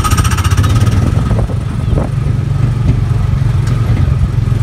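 Small gasoline engine of a Tomorrowland Speedway ride car running steadily as the car drives along, a loud, low, even drone.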